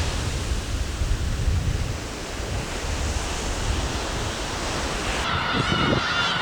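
Sea surf on a rocky shore with wind buffeting the microphone, a steady rushing noise with a low rumble. About five seconds in, birds start calling in short, repeated cries.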